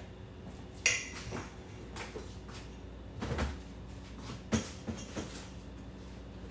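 Kitchen clatter as a bowl of glaze is put away in the refrigerator: a sharp ringing clink about a second in, then a few scattered knocks and dull bumps.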